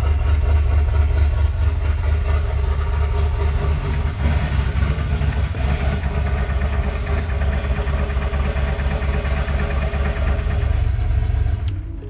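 Ford Bronco's V8 engine idling with the exhaust cutout open, running a little rough.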